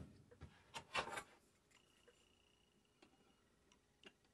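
A few faint light taps and knocks about a second in, from a steel rule and a wooden plow plane being handled on a workbench; otherwise near silence.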